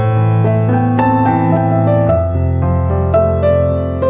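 Background piano music: a gentle melody of single notes over held low chords.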